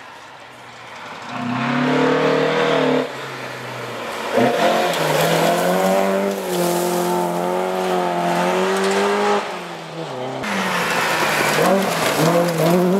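Historic rally cars on a gravel stage passing one after another, among them a Volvo 142 and a Ford Escort, engines revving hard with gravel spraying from the tyres. The engine noise sets in about a second and a half in, drops away about three seconds in and again near ten seconds, and the last car's engine note rises near the end.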